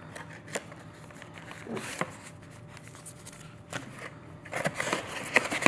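Cardboard lens box and its paper packaging being handled and opened: scattered light taps and rustles, turning into a quick run of scraping and crinkling near the end.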